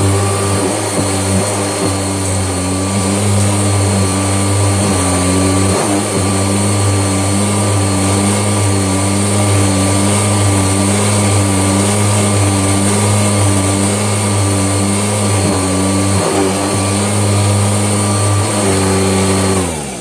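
Kirby Legend II upright vacuum cleaner running steadily while pulling flour up out of a carpet. Near the end it is switched off and its motor whine drops in pitch as it winds down.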